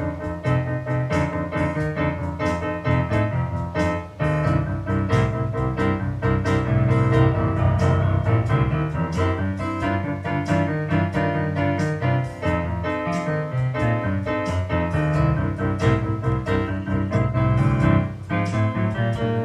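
Solo piano music on a Yamaha P515 digital piano, a busy passage of many quick notes over a full bass.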